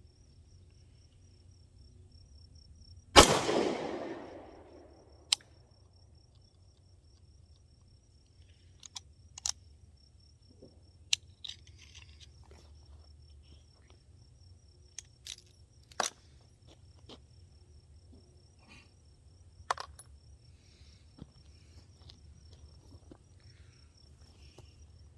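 A single shot from a prototype pistol firing 124-grain full-metal-jacket ammunition about three seconds in, its report ringing out and fading over about a second. Scattered light clicks follow, and crickets chirp steadily throughout.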